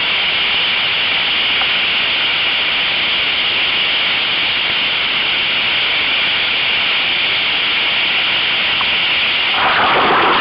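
Whitewater of a river wave rushing steadily past a surfing kayak, heard close at water level. About nine and a half seconds in it turns into louder, churning splashing as the kayak capsizes.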